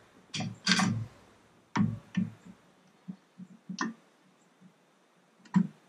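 Half a dozen sharp, irregularly spaced clicks and knocks of hand tools against the metal of an outboard powerhead while a screw is being fitted.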